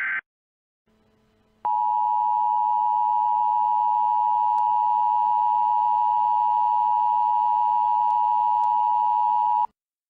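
Emergency Alert System attention signal: a loud, steady alarm of two close pitches, held for about eight seconds before it cuts off abruptly. It follows the tail of a burst of digital header data tones at the very start.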